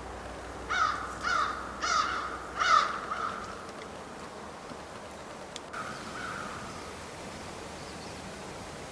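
A crow cawing four times in quick succession, then once more, fainter, a few seconds later.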